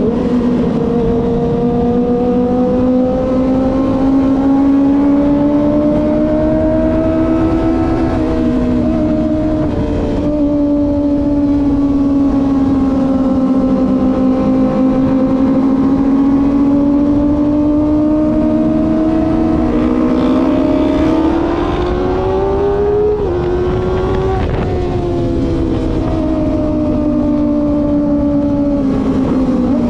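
Kawasaki ZX25R's 250 cc inline-four engine running at steady cruising revs, its pitch wandering up and down with the throttle. Several times it briefly dips and changes pitch; near two-thirds through it climbs steadily, then drops back.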